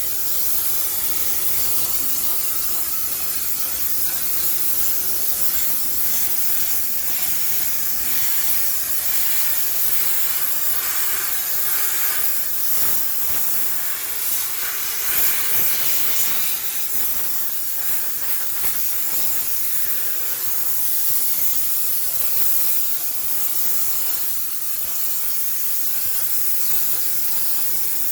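High-pressure steam sterilizer jetting steam in a steady, loud hiss, with slight swells as the nozzle is moved while sanitizing a washing machine.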